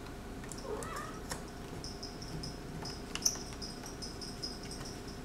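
A cat meows once, briefly, about a second in, among light clicks of a small screwdriver on a laptop's screen screws; the sharpest click comes a little past three seconds. A faint high whine runs through the second half.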